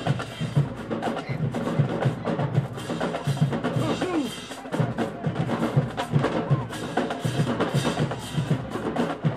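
Marching band drumline playing a fast cadence: steady low bass-drum hits several times a second under rapid, sharp snare and stick clicks.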